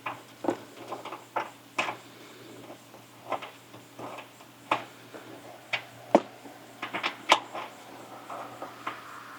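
Irregular clicks and knocks of a hand tool and plastic air box parts being handled, over a faint steady hum.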